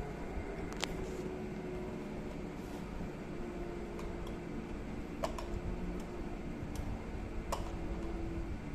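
A few light metallic clicks as a small Allen key and the microscope's fluorescence attachment are handled, two of them close together about five seconds in, over a steady background hum.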